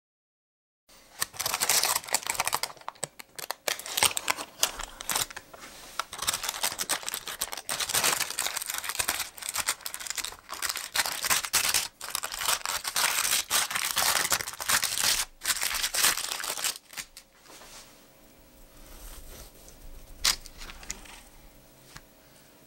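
Baking parchment being crinkled, torn and peeled away from a baked loaf cake: loud, dense crackling that starts about a second in and dies down about three-quarters of the way through.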